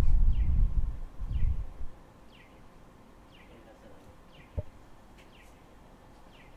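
A Toyohashi Railway 3200-class tram, heard from on board, rumbling along and then falling quiet about two seconds in as it comes to a stop. A single knock sounds about four and a half seconds in. A faint high chirp, falling in pitch, repeats about once a second.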